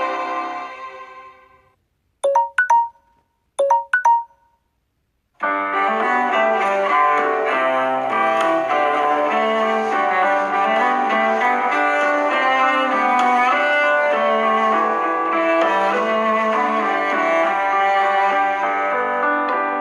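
Samsung Galaxy S6 edge+ ringtones played one after another. One melody fades out in the first two seconds, then a short ringtone gives two pairs of quick chime notes. About five seconds in, a longer melodic ringtone with piano-like notes starts and plays on.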